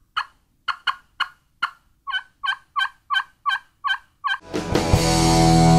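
Hen turkey yelping: a few sharp, clipped notes, then an even run of about seven yelps, roughly three a second. A loud music chord swells in near the end and is the loudest sound.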